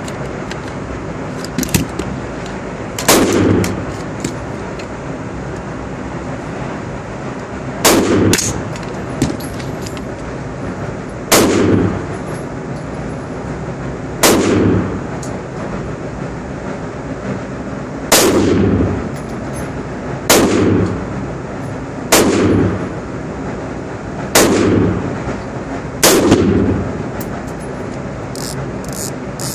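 AR-15 rifle in .223 firing nine single shots at slow, uneven intervals, as when sighting in, each report echoing briefly off the walls of an indoor range.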